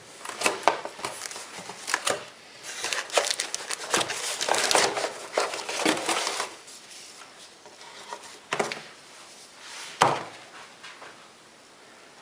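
A Makita angle grinder and its packaging being handled: irregular rustling, clicks and light knocks, busiest in the middle, with one sharper knock about ten seconds in.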